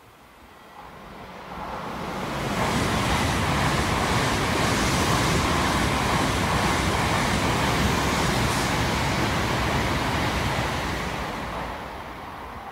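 Tokaido Shinkansen train passing through a station at speed: a rushing noise that swells over the first couple of seconds, holds steady for about nine seconds, then fades away near the end.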